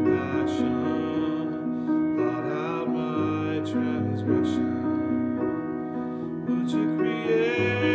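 Grand piano playing a slow, gentle hymn tune, with sustained chords and melody notes that change about every second.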